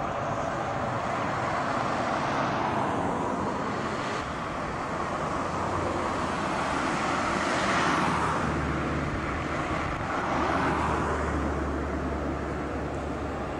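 Street traffic: tyre and engine noise from passing cars, swelling as vehicles go by a little past the middle and again a few seconds later. A low steady hum comes in under it about two-thirds of the way through as a tram approaches along the street track.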